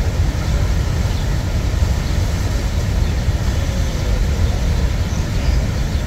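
Steady roar of Niagara's Horseshoe Falls: an even rumble of falling water, heaviest in the low end, with no breaks.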